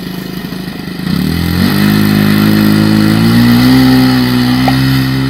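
Saito 125 four-stroke glow engine of an RC Spacewalker plane, puttering at low throttle, then opened up about a second in, its pitch climbing over a couple of seconds to a steady full-throttle run for the takeoff.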